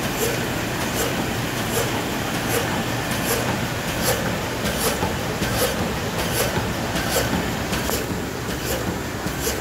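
Autobond Multi 76 thermal film laminator with flying knife cross cutter running steadily, with a sharp stroke repeating evenly about every three-quarters of a second, once per sheet, as it laminates and flush-cuts sheets at 4600 an hour.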